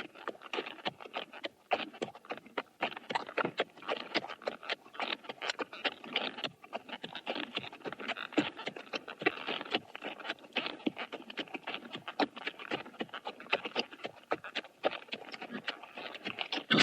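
Horse walking at a steady pace, its hooves clip-clopping in a continuous run of sharp knocks.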